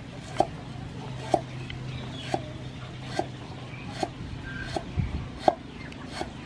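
Cleaver slicing lemongrass stalks on a thick round wooden chopping board: a slow, even chop about once a second, each a sharp knock of the blade on the wood.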